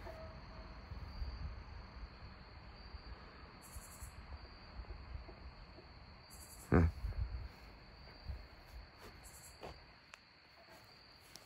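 Crickets trilling steadily, a thin high-pitched chorus over a low outdoor rumble. A single loud thump comes about seven seconds in.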